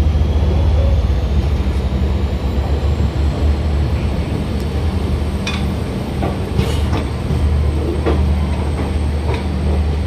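Passenger express train running, a steady low rumble with scattered clicks and knocks.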